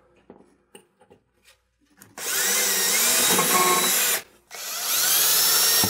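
Cordless drill boring screw holes in a fiberglass shower wall: two runs of about two seconds each, the first starting about two seconds in and the second near the end, after a few faint clicks while the bit is set in place.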